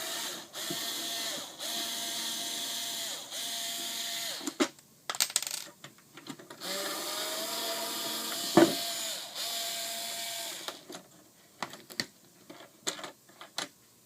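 Power drill-driver whirring in short runs as it backs out the two screws holding a robotic pool cleaner's drive motor: four quick runs, then one steady run of about four seconds. Small clicks come between the runs, and a sharp knock comes during the long one.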